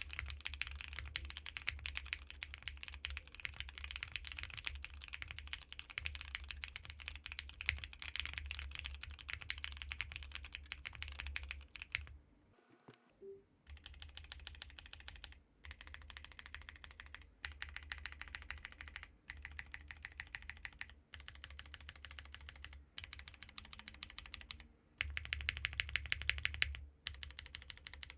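Continuous typing on a mechanical keyboard with stock JWICK Black switches, a 1.2 mm PCB and 50A tadpoles: a dense stream of key clacks, with a full break about twelve seconds in and several short pauses after it.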